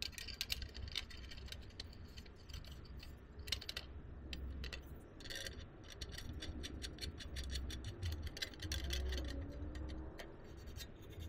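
Faint metallic clicks and taps as small steel panel clamps are handled and fitted onto thin sheet-steel pieces lying on a steel welding table, at an irregular pace.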